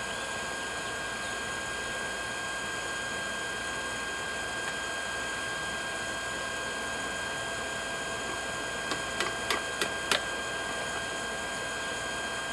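Small electric blower feeding air to a backyard forge fire, running with a steady hum and whine. About nine seconds in come five quick light metal clicks.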